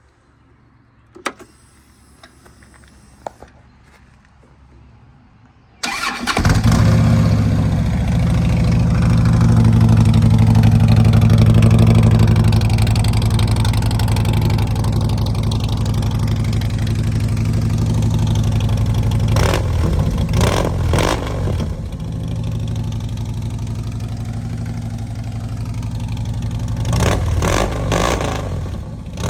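A 2009 Harley-Davidson Road King's V-twin, fitted with new Shark Road 36-inch fishtail pipes, started for the first time. After a few faint clicks it fires about six seconds in and settles into a loud, steady idle, with a few brief revs about two-thirds through and near the end.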